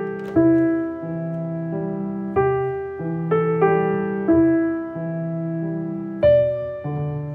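Background music played on a piano-like keyboard: a slow tune of single notes, each struck and left to fade, changing about once a second.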